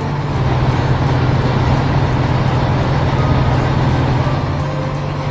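Heavy vehicle engine running steadily with a low hum, growing a little louder about half a second in and easing back near the end.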